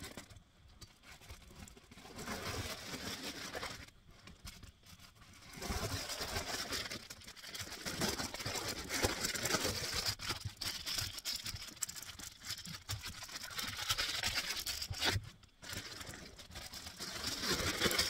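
Foil-faced insulation window covers crinkling and scraping as they are handled and pressed into a minivan's windows, coming and going irregularly with short lulls about four and fifteen seconds in.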